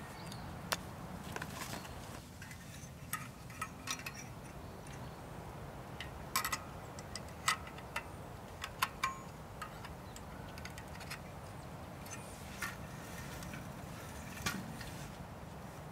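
Irregular light clinks and clicks of small metal gear being handled, about a dozen scattered through, some ringing briefly, over a low steady background rumble.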